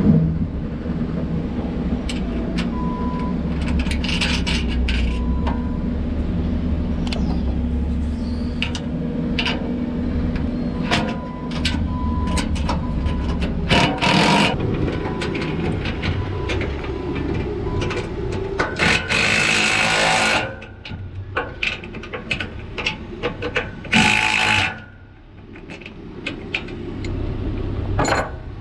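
Wrench and metal bolt hardware clicking and clinking as a steel tool rack is bolted to a trailer rail, over a steady low hum, with a few louder noisy bursts of about a second each.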